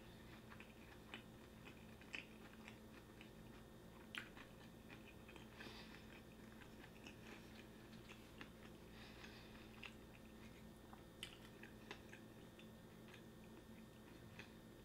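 Faint, close-miked chewing of a mango sushi roll: scattered soft mouth clicks over a low steady hum.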